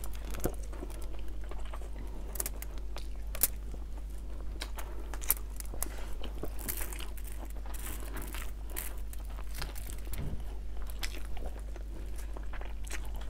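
Two people eating by hand close to the microphone: soft chewing and lip smacks with scattered small clicks and crinkles of fingers on the food and table covering. A steady low hum runs underneath.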